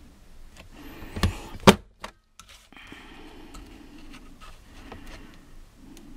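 Two sharp clacks about half a second apart, the second louder, from the plastic punch of a Stampin' Up Gift Bag Punch Board cutting through cardstock; then paper rustling and sliding on the board as the cardstock octagon is turned and lined up for the next punch.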